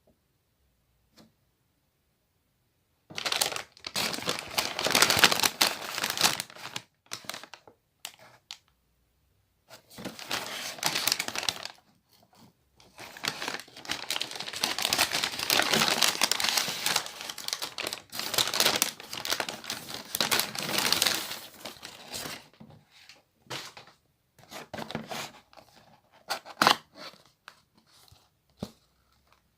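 Plastic macaron packaging crinkling and rustling in long bursts as it is handled and opened. Near the end the rustling thins to scattered clicks and crackles.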